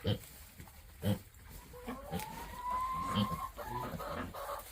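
Pigs grunting as they eat grain, with two short knocks near the start and about a second in. About two seconds in, an animal gives one long, slightly rising call.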